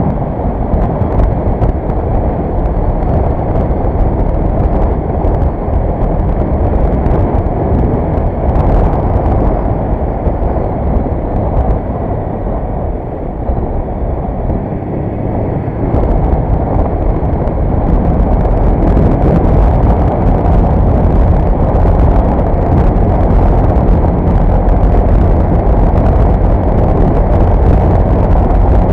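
Suzuki GS500 motorcycle under way: its parallel-twin engine running beneath a heavy rumble of wind on the microphone. It grows louder a little over halfway through.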